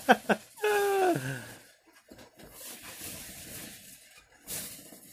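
A young child's voice: a quick run of short giggles, then a long vocal sound falling in pitch about a second in. After that, faint rustling of latex balloons being handled, with a brief louder rustle near the end.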